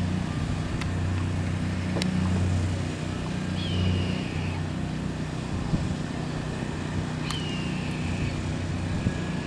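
Four-engine military turboprop, a CP-140 Aurora or C-130 Hercules, passing overhead with a steady, pulsing low drone. Two short high chirps come in about three and a half and seven seconds in.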